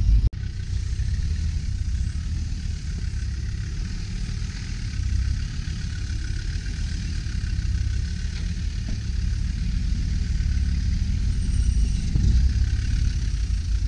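Land Rover Discovery engine running at low revs as the 4x4 crawls slowly over bare rock, its note swelling a little about five seconds in and again near the end.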